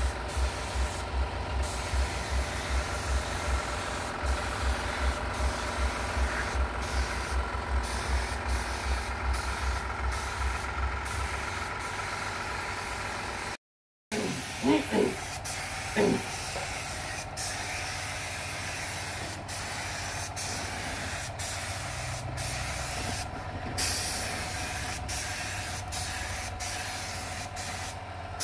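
Gravity-feed air spray gun hissing steadily as it sprays polish onto carved wood. For the first half, an air compressor runs underneath with a fast low pulsing. The sound drops out briefly about halfway, then the spray hiss carries on.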